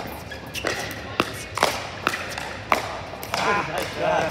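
A fast pickleball rally: a string of sharp, hollow pops from paddles hitting the plastic ball, about two a second, echoing in the large indoor hall. A player's voice comes in near the end.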